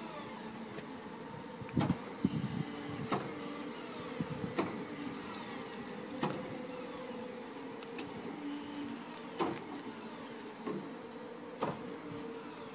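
Haulotte HA15 I battery-electric articulated boom lift driving: its electric drive motor gives a steady whine, with a sharp click every one to three seconds.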